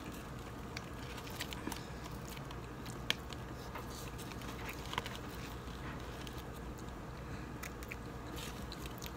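Chewing and biting into a crispy fried empanada, with small crunches and clicks scattered through and two sharper crackles about three and five seconds in.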